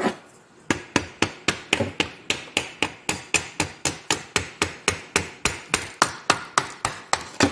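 Quick, even hammer taps, about four a second, starting just under a second in, driving the lay shaft out through the lay gear of an Austin-Healey gearbox.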